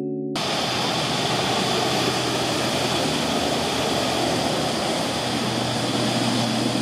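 Ski boat engine running steadily at speed as it tows a water skier past, with the rush of water from its wake.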